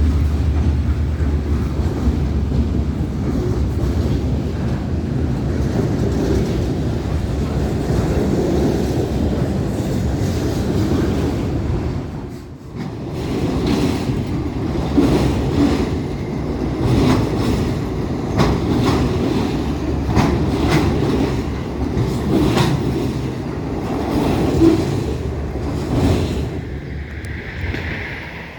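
Diesel-hauled freight train rolling past: a deep, steady engine rumble for roughly the first twelve seconds, then, after a brief dip, repeated clacks of freight car wheels over rail joints as the cars go by.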